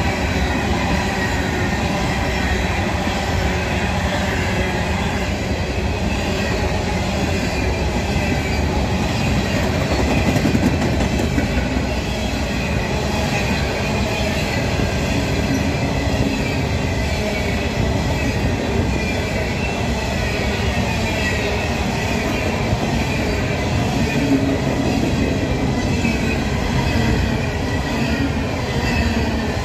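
A long string of empty steel coal hopper cars rolls past at close range, making a steady wheel-on-rail rumble and rattle with a faint high squeal from the wheels.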